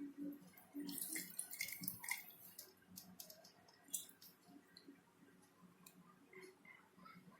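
Cut lime being squeezed by hand, juice dripping into a glass, with small wet squelches and clicks.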